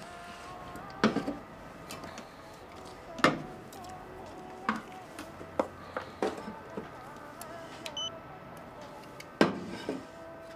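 Cans and small goods knocking down onto a checkout counter, several separate knocks, as a shopping basket is unpacked. A barcode scanner gives one short high beep about eight seconds in.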